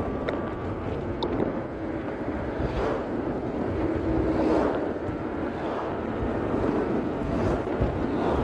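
Wind rushing over the microphone of a moving motorcycle, with the engine and road noise running steadily underneath.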